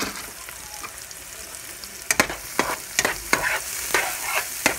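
Chopped onions, green peppers and tomatoes sizzling in oil in a nonstick frying pan. From about two seconds in, a spatula stirs them, scraping and clicking against the pan a few times a second.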